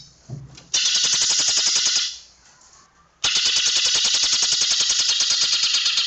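Greater green leafbird (cucak ijo) singing its 'tembakan rapat' song, a dense rapid-fire string of high notes at about a dozen a second. It comes in two bursts: one lasting about a second, then a pause of about a second, then a longer run.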